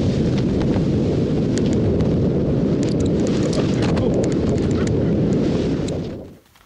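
Wind rushing over an action camera's microphone while skiing fast through powder: a loud, steady rumble with scattered sharp ticks. It cuts off abruptly about six seconds in.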